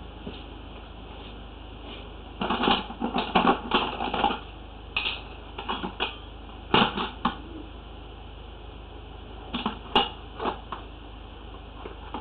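Irregular clattering and clicking of hard items knocking together as drain-cleaning gear is handled, in bursts about two to four seconds in, around seven seconds, and again around ten seconds.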